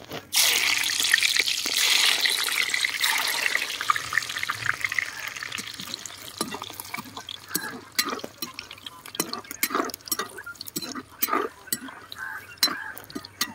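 Cashew nuts dropped into hot oil in a black iron kadai. A loud sizzle sets in suddenly and fades over about six seconds, leaving scattered pops and crackles of frying.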